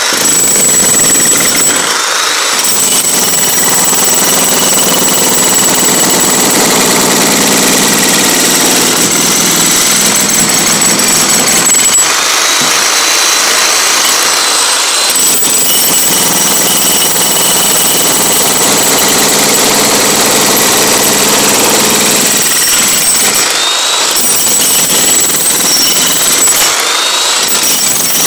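Electric demolition hammer chiselling into a concrete floor, running as continuous rapid hammering with a steady high whine. It breaks off for a moment a few times, at about two seconds in and twice near the end.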